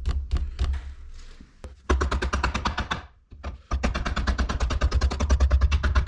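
Rapid, even mechanical clicking or rattling at about ten clicks a second, in two runs with a short break a little after three seconds in, over a steady low hum.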